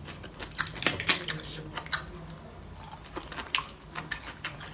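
Close-up eating sounds: crisp bites and crunchy chewing, loudest in a cluster of crackles about a second in, then scattered crunches.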